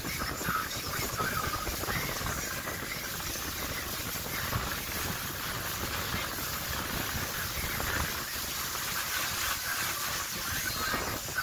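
Motorboat running at speed: a steady rush of wind buffeting the microphone and water spraying, with the motor running underneath.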